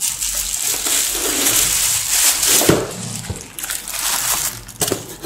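Plastic bubble-wrap packaging crinkling and rustling as it is handled and taken out of its box, with a few sharper crackles.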